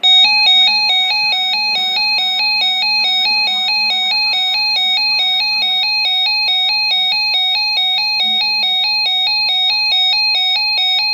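Weather radio receiver's alert alarm sounding for a flash flood warning: a loud electronic beeping tone that alternates between two pitches about twice a second, then cuts off suddenly.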